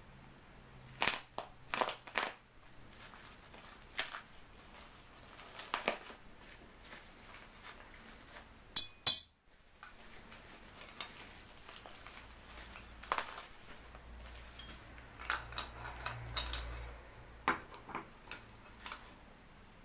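Plastic packaging and tape being pulled off small parts by hand, crinkling and snapping in irregular bursts, with occasional light clinks of small metal parts.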